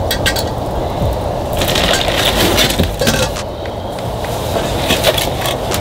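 Handling noise from motor parts being worked by hand: scattered clicks and light clinks in three clusters, over a steady low rushing noise.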